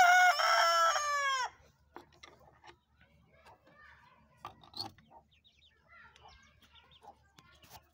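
A rooster crows once, a loud call of about a second and a half that falls in pitch at the end. After it come faint hen clucking and light wooden clicks and knocks as the coop's small wooden door is unlatched and opened.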